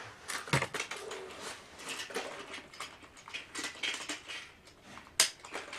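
Plastic Plarail toy trains and track being handled by hand: irregular small clicks, taps and rattles of plastic, with one sharp click about five seconds in.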